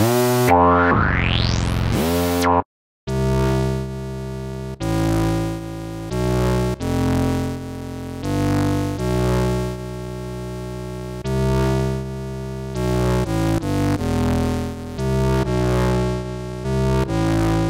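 Sampled Jupiter 4 analog synthesizer (J4 Kontakt library) playing demo patches. First comes a bright tone with a slow rising filter sweep, then a short break, then a new patch playing held notes and chords that change about once a second, many of them swelling in softly.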